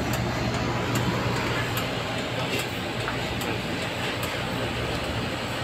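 Steady hum and hiss of convenience-store refrigeration machinery, with a faint tick repeating a little faster than once a second.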